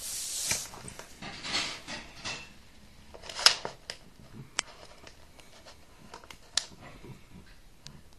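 Cavalier King Charles Spaniel chewing and nosing at a plush toy: soft rustling of fabric broken by a few sharp little clicks, the loudest about three and a half seconds in.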